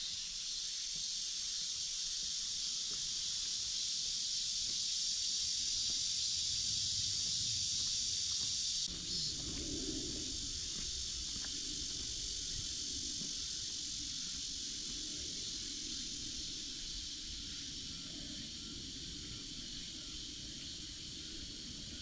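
A dense, steady, high-pitched chorus of summer cicadas in the trees. It drops a little about nine seconds in, where a faint low rumble joins.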